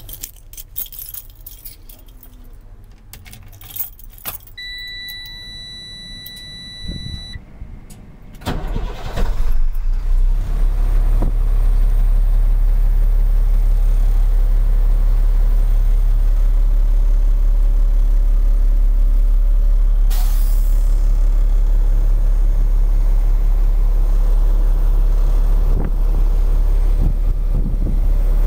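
Keys jangling, then a steady electronic warning buzzer for about three seconds as the ignition is switched on. About eight seconds in, a 2002 Freightliner FL60's diesel engine cranks and starts, then idles steadily with a deep rumble.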